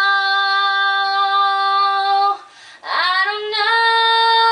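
A girl singing alone without accompaniment, holding a long vowel on one steady note. About halfway through she stops for a breath, then slides up into a second long held note a little higher.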